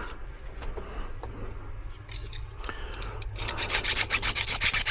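Hand file rasping on a metal key blank, trimming off excess metal: after a few seconds of quieter handling clicks, rapid, even filing strokes start about three and a half seconds in.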